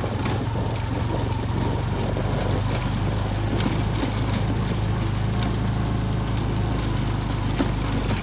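ATV engine running steadily while riding, with a few light knocks.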